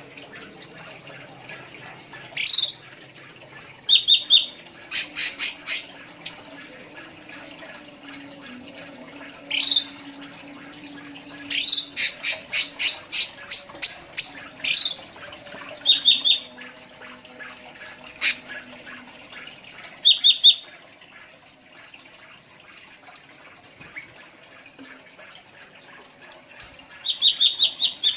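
Cucak ranti songbird singing in bursts: quick sweeping whistles and rapid runs of sharp chirps, several a second, with pauses of a few seconds between phrases.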